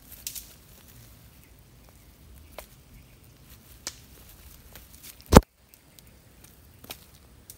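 Scattered soft knocks and rustling as a large snakehead is handled on dry leaf litter and in a mesh landing net, with one sharp, much louder knock about five seconds in.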